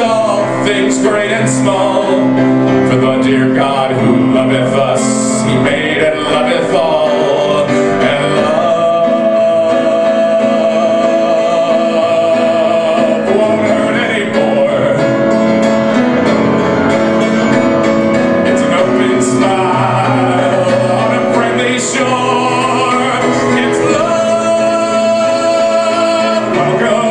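A man singing long, held notes over piano accompaniment, without clear words.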